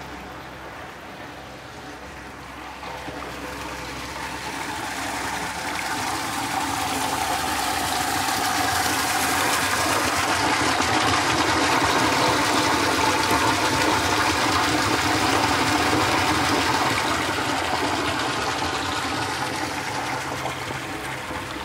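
Water splashing and running into a village fountain's stone trough, a steady rush that grows louder as it is approached, is loudest mid-way, then fades.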